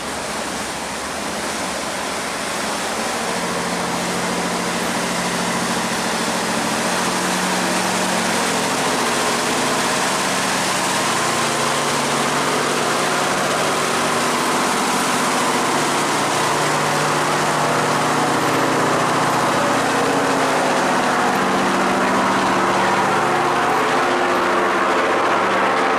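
A loaded cargo boat's engine running steadily over the rush and churn of water from its wake, getting louder as the boat passes close by.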